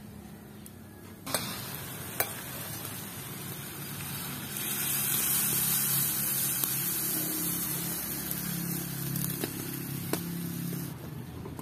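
Two sharp metal clanks as the aluminium pan's lid comes off. Then, from about four seconds in, water is poured from a plastic dipper into the hot pan of sautéed chicken, sizzling and hissing as it hits the metal.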